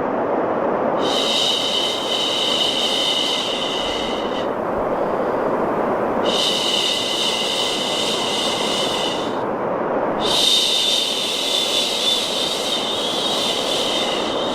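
A person shushing, three long "shhh" sounds of three to four seconds each with short pauses between, over a steady bed of low, rushing white noise.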